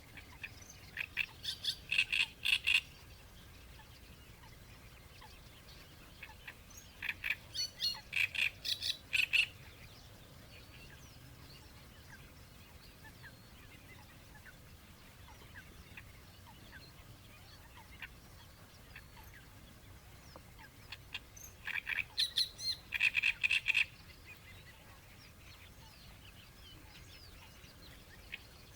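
Great reed warbler singing its creaking song: three bouts of fast, repeated harsh notes, each two to three seconds long, with long pauses between them.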